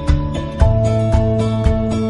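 Instrumental background music with held notes over a steady beat, about two beats a second.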